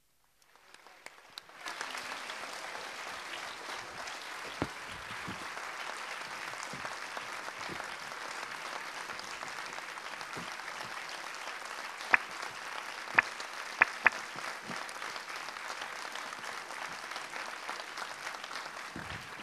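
Audience applauding. The applause starts out of silence just after the start, builds to full within about a second and a half, and stays steady, with a few sharp, louder single claps close to the microphone about two-thirds of the way through.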